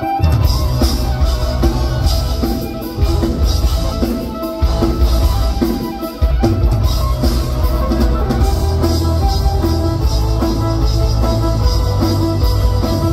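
Live band playing loud rock-backed instrumental music, with electric violin over electric guitar, bass and a pounding drum kit. The music drops back briefly a few times in the first half before the full band comes back in.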